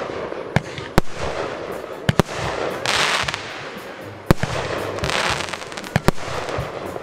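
Aerial fireworks: shells launching and bursting with about seven sharp bangs, some in quick pairs. Two stretches of hissing come about three and five seconds in.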